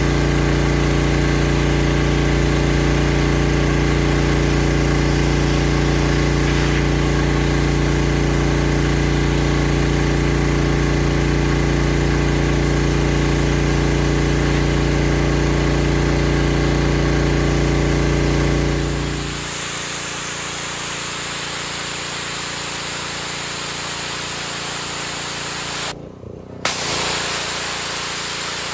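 Pressure washer engine running steadily with the hiss of the water spray. A little past halfway the engine's low hum drops away, leaving mostly the spray's hiss, which cuts out briefly near the end.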